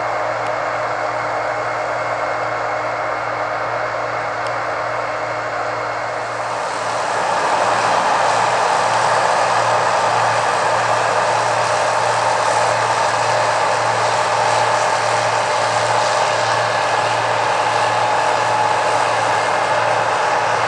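Massey Ferguson 8570 combine harvester running steadily with a constant mechanical hum and whine, growing louder about seven seconds in.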